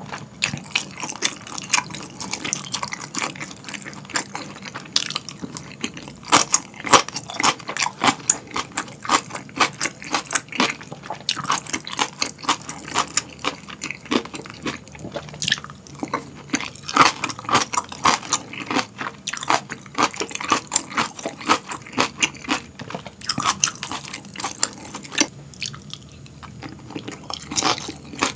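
Close-miked chewing of boiled pork and kimchi: a dense, irregular run of wet mouth clicks and smacks.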